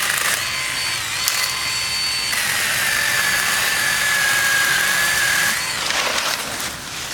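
Small battery-powered Milwaukee pruning chainsaw running and cutting another branch, its motor whine steady for about six seconds, changing pitch about two seconds in as it bites into the wood, then stopping.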